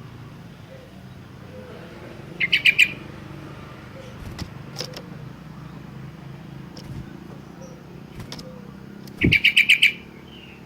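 Sooty-headed bulbul (kutilang) calling: two quick chattering bursts of about six rapid notes each, one a little over two seconds in and one near the end, over a low steady hum in the background.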